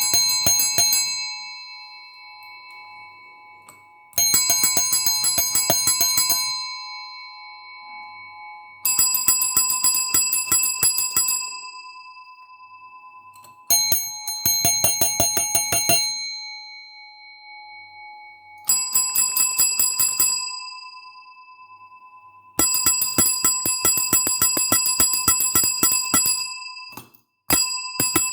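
A small metal bell rung in repeated trills of rapid strikes, each trill about one to two seconds long and then ringing away, starting again about every five seconds. One trill near the end runs longer, nearly four seconds.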